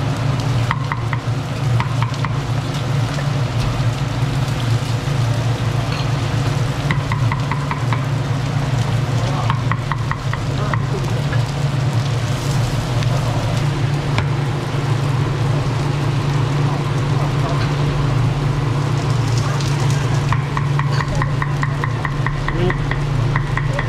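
A cleaver chopping and tapping on a round wooden cutting board, with several quick runs of rapid strokes. Under it are a steady low hum and the sizzle of a flat griddle.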